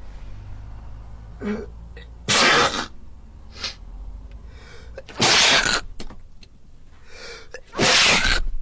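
Three sneezes, one about every two and a half seconds, each a loud burst of breath lasting about half a second, with a short catch of breath before the first.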